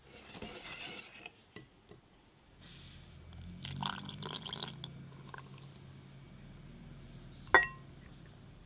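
A brief dry hiss at the start, then milk and yogurt pouring from a jug into a glass bowl of mashed banana. About a second before the end comes one sharp glass clink with a short ring, the loudest sound.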